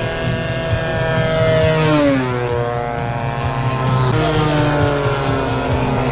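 Engine of a radio-controlled model plane flying past, its pitch dropping about two seconds in, over a steady lower engine drone.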